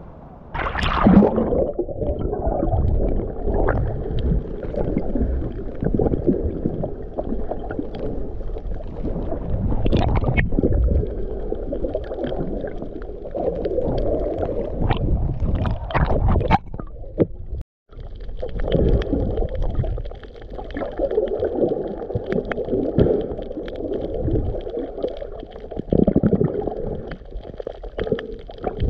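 A splash about a second in, then the muffled gurgling and sloshing of water around a GoPro camera held underwater as a snorkeler swims, with scattered clicks and a brief dropout past the middle.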